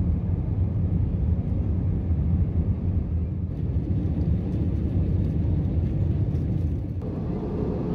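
Airliner jet engines and airflow heard inside the cabin during takeoff and climb-out: a steady low rumble, its tone shifting slightly near the end.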